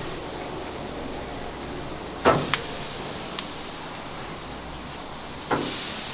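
Pieces of marinated jerk pork slapped down onto a hot wire-mesh grill over charcoal: two sudden landings, a little past two seconds in and near the end, the second followed by a short sizzle, with a few light clicks of meat and mesh and a steady hiss underneath.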